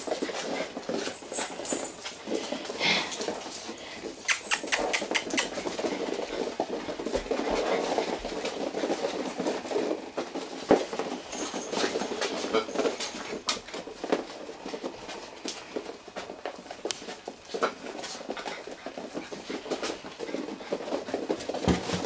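A litter of six-week-old puppies playing and scuffling, making small puppy noises, with many sharp clicks and a patter of claws on a hard tile floor.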